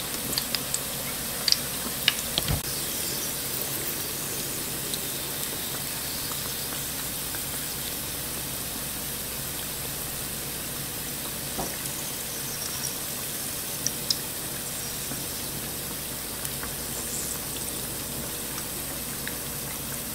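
Dough dumplings frying in hot oil in a DeLonghi Roto deep fryer: a steady bubbling hiss, with a few faint clicks.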